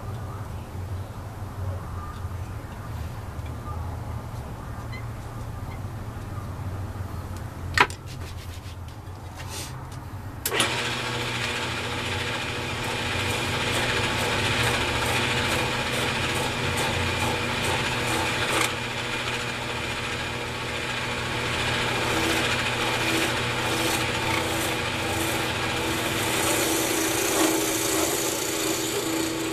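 Wood lathe running with a low hum, one sharp click near 8 seconds. From about ten seconds in, a turning chisel cuts the spinning cocobolo pen blank with a steady hissing scrape.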